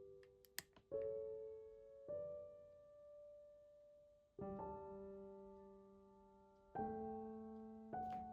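Slow, soft solo piano music, single chords struck every second or two and left to ring out. A few light clicks come about half a second in.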